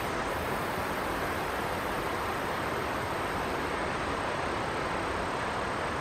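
Steady, unbroken rush of a flowing river.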